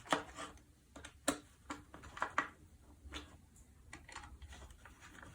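Irregular light clicks and ticks of a ceiling fan blade and its metal bracket being handled while the screws are tightened.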